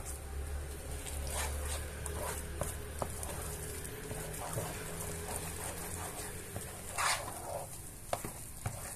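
Silicone spatula stirring thick mashed potato in a pot: soft squishing and scraping with small knocks against the pan, over a low hum that fades about halfway. A short, louder noise about seven seconds in.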